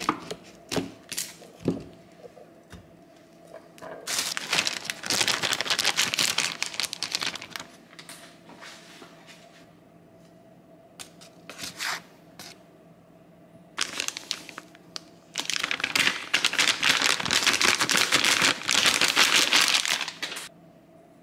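Packaging crinkling and rustling as it is handled, in two long stretches with a few short rustles and clicks between.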